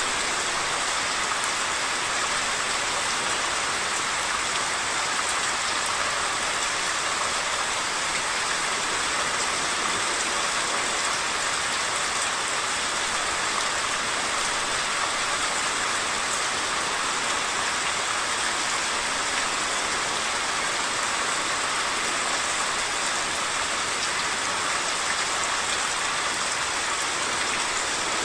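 Heavy monsoon rain falling steadily.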